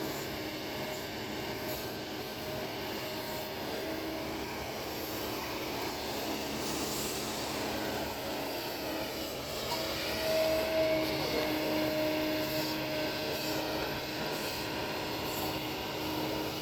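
Kobelco excavator's diesel engine running steadily under work, with a held machine tone that grows louder a little past halfway.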